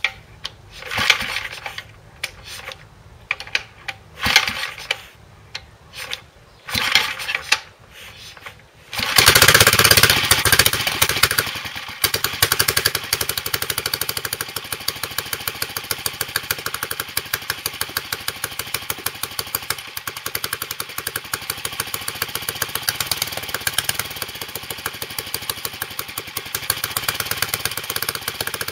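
1944 J.A.P. Model 3 single-cylinder stationary engine turned over by hand in several short cranking bursts, then catching about nine seconds in on its first start after restoration. It runs loudest for a few seconds, then settles into a steady run of regular firing beats.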